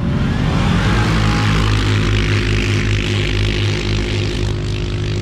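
Three CFMOTO CForce ATVs (single-cylinder 500 and 600 and a V-twin 800) launching together from a standing start in a drag race. Their engines rev up over the first second, then hold a steady high pitch under full throttle as they pull away.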